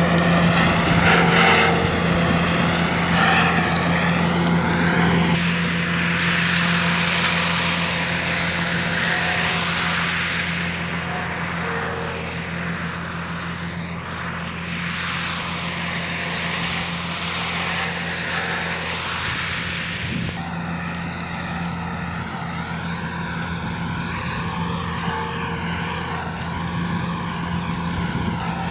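Tractor engine running steadily under load, driving a rear-mounted Maschio mulcher that shreds dry crop straw: a constant low engine drone with a broad hiss from the mulcher, growing somewhat fainter after the first few seconds.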